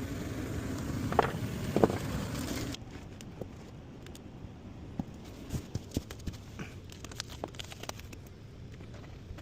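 A steady machine hum that ends abruptly about three seconds in, followed by scattered light clicks and taps of tools and fittings being handled, as a manometer is set up on a gas furnace.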